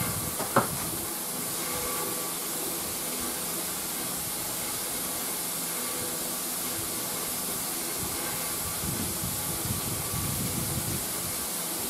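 Lacquer being sprayed: a steady hiss, with one sharp click about half a second in.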